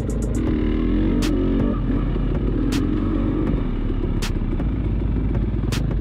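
KTM enduro dirt bike engine running on a trail ride, revving up and down in the first couple of seconds then holding steadier, with a constant low rumble. Sharp clicks come about every second and a half.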